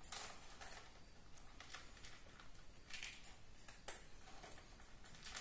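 Faint, irregular soft clicks and rustles of cats and kittens moving about in a wire cage. A thin, high-pitched wavering chirp sounds twice.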